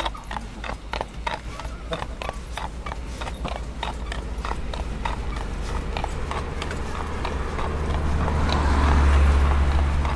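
A horse's hooves clip-clopping on asphalt at a steady walk as it pulls a carriage. A low rumble swells and becomes the loudest sound near the end.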